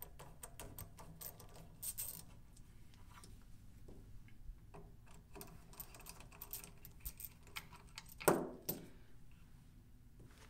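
Rifle action screws being backed out of the stock with a T-handle driver: a run of light, irregular metallic clicks and ticks, with two louder knocks about eight seconds in.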